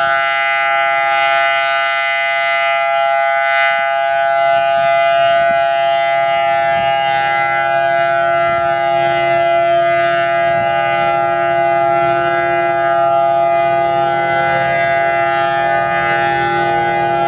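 Federal Signal Thunderbolt 1000AT outdoor warning siren sounding a loud, steady tone that holds one pitch throughout.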